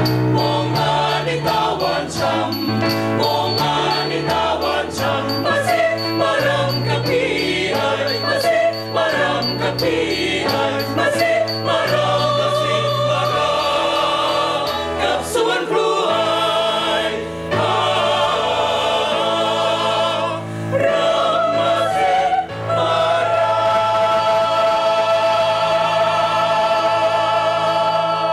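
Mixed choir singing a Thai ramwong song in close harmony, over a light steady ticking beat. It closes on a long held chord in the last few seconds.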